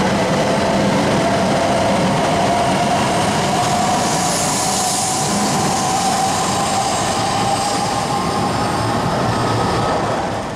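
E6 series Shinkansen cars of a coupled E5+E6 train running along the platform: a steady rush of wheels and air with a faint motor whine climbing slowly in pitch. It fades out at the very end.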